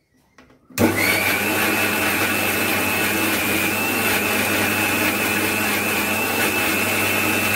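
Electric mixer grinder running, its small stainless-steel jar grinding mango, ginger and green chillies with a little water into a paste. The motor starts about a second in and rises quickly to a steady high whine that holds evenly.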